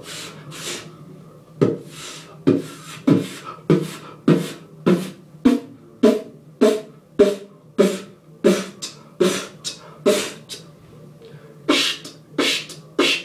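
Solo beatboxing: a steady pattern of mouth-made kick drum and snare sounds, about two strokes a second, some with a sharp hissy tail, with a brief break near the end.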